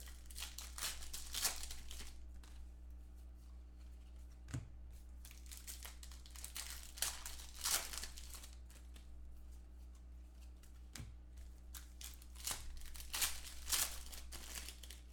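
Plastic wrapper of a trading card pack being torn open and crinkled by hand, in irregular crackling bursts, loudest near the start, about halfway through and near the end.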